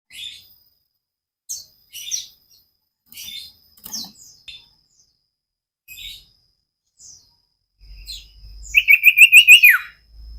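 Cipoh (common iora) singing: scattered short chirps and whistles, then near the end a loud, fast trill of about eight rising notes that ends in a falling slide.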